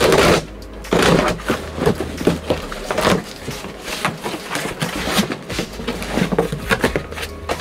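A box cutter slicing the packing tape on a cardboard shipping box, then the cardboard flaps pulled open and rustling as hands reach inside. It comes as a run of irregular scrapes, creaks and knocks, loudest at the start and again about a second in.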